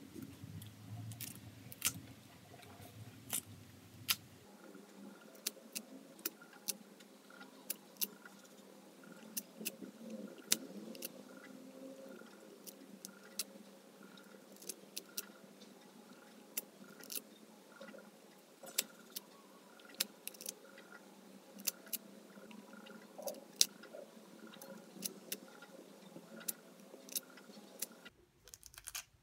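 Pineapple fruitlets being pulled apart from the core by hand, coming away with irregular sharp little snaps, about one or two a second. The snapping stops shortly before the end.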